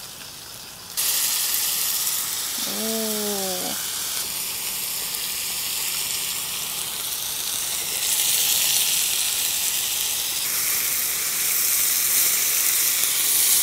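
Ground-beef patties sizzling in hot oil in a frying pan. The sizzle jumps suddenly louder about a second in as a raw patty goes into the oil, and swells again twice later as more patties cook and are turned.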